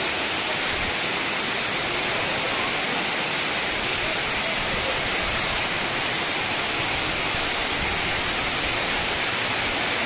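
Steady rushing hiss of the Cepung waterfall pouring into its shallow pool.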